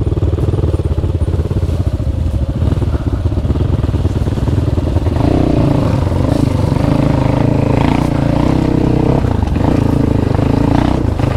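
Dirt bike engine running close by under load, chugging at low revs, then revved harder about five seconds in as the throttle is opened to pull up the trail.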